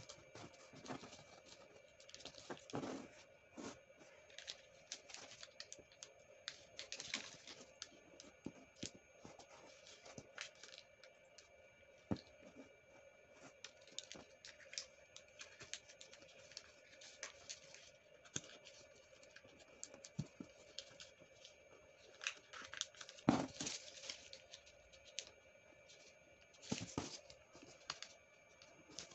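A sheet of two-colour origami paper being folded and creased by hand: irregular crinkles, rustles and sharp creasing clicks, with louder bursts of handling about 3, 7, 23 and 27 seconds in.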